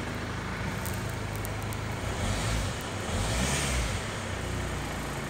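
Holden Captiva's 2.2-litre four-cylinder diesel engine running, heard from inside the cabin, with the revs raised in Park so that it swells louder twice in the middle.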